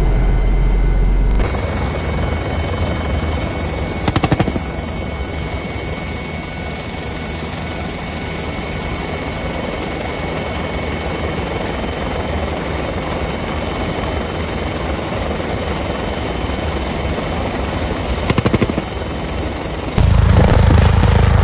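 Eurocopter Tiger attack helicopter in flight: steady turbine and rotor noise with a high whine. About 4 s in and again near the end come two short rapid bursts from its 30 mm chin cannon. Near the end the sound switches to a louder, deeper rotor beat.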